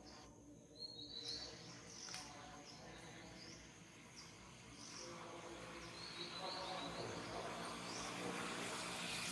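Faint outdoor ambience: short high chirps repeating every second or so over a low steady hum, with a rushing noise building over the last few seconds.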